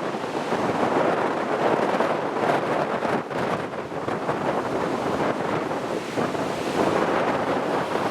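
Strong wind buffeting the microphone over rough surf breaking in a harbour. The wind and heavy sea are the backlash wind left behind a passing typhoon.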